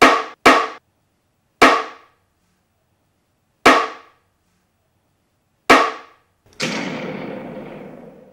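A mallet striking a tilted metal sheet: five sharp knocks that each die away quickly, coming further and further apart. Near the end a longer, noisier sound that fades out over about two seconds.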